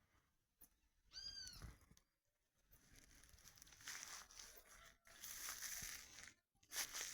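Common marmoset (soim) giving a short, arched, whistled call with overtones about a second in. A faint high hiss follows in the middle seconds.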